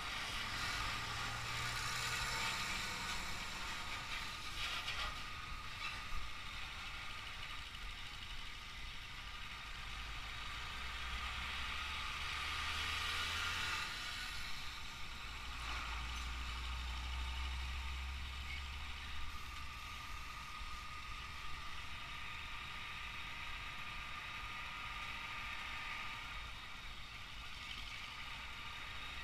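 Heavy trucks moving past in slow, jammed road traffic. Their diesel engines make a low rumble that swells about halfway through, over a steady background of traffic noise.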